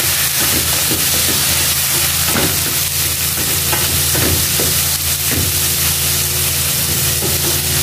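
Kangkong (water spinach) stems with tomatoes, onions and garlic sizzling in hot oil in a pan. A wooden spatula stirs them, scraping and knocking against the pan every second or so.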